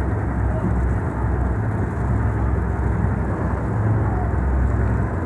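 Steady low rumble of a whale-watching boat's engine running, heard from the open deck.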